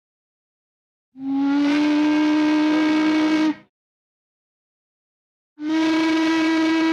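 Steam locomotive whistle used as an old cartoon sound effect, blown in two long blasts about two seconds apart. Each blast holds one steady low note over a breathy steam hiss.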